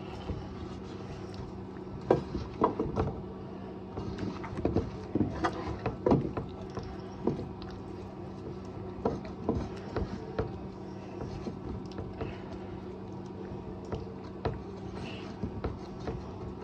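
Hands mixing chicken pieces, potatoes and vegetables in oil in a roasting tin: irregular soft taps, knocks and squelches over a steady low hum.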